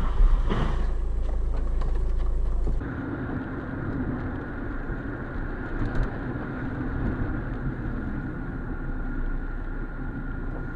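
Dashcam recording of a car driving on a wet road: steady engine and road noise heard from inside the cabin, with a heavy low rumble that switches abruptly about three seconds in to a thinner hum with a faint steady tone, as the recording changes.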